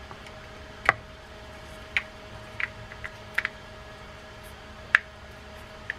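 Irregular light clicks and taps, about eight in all, of small metal and plastic parts of a Daiwa D-Wave spinning reel being handled as its side plate is fitted back onto the body. The sharpest clicks come about a second in and about five seconds in.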